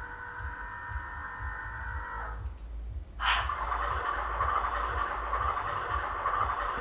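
DCC sound decoder in an HO-scale B class diesel locomotive model playing its startup sequence through the model's small speaker. A steady whine cuts off a little over two seconds in, and after a short pause the diesel engine sound starts abruptly about three seconds in and keeps running, louder.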